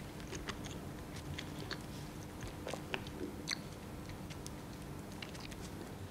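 A person eating bread: irregular small crunches and crackles as it is bitten and chewed.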